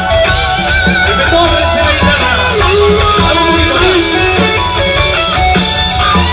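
Rock band playing, led by electric guitar with notes that bend and slide up and down over bass and drums, with no singing.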